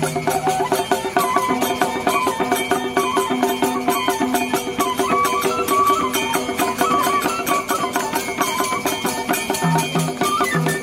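Nepali Tappa folk music: a madal drum beats a brisk, steady rhythm under a wavering melody line.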